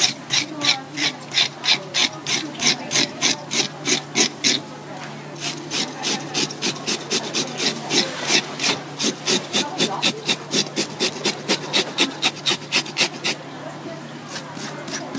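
A metal fish scaler scraped in quick repeated strokes along the skin of a red spotted grouper, taking off its scales, about four strokes a second. The strokes break off briefly about five seconds in and stop near the end.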